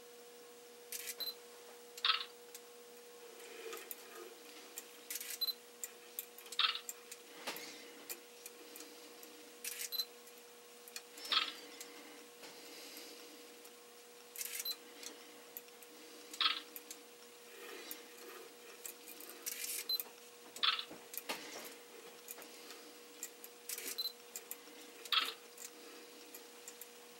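Digital camera on a gyro-triggered kite aerial photography rig taking a picture about every four and a half seconds, six times, each time the swinging rig passes level. Each shot is a pair of short electronic clicks, the first with a small high beep, about a second apart, over a faint steady hum.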